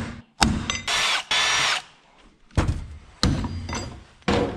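Ball-peen hammer striking small steel angle-iron brackets on a wooden board: sharp metallic taps that ring briefly, with two short noisy bursts about a second in and further clanks of the steel pieces near the end.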